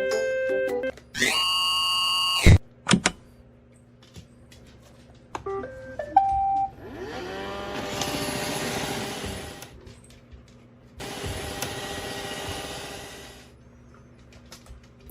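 Robot vacuum cleaner: an electronic tone and a click, a few short beeps, then its motor whirring up and running in two stretches of about three seconds each.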